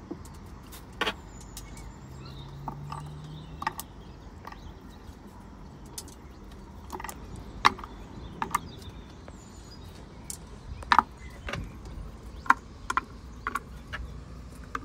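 Light clicks and knocks of kitchen items being handled and set down, a dozen or so at irregular intervals, over a low steady background hum.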